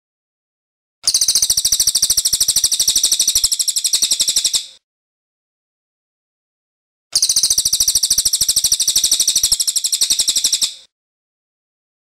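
Cililin, a songbird of the crow family, singing two long rolling trills: very rapid strings of loud, high-pitched notes, each lasting about three and a half seconds, with a silent gap between them.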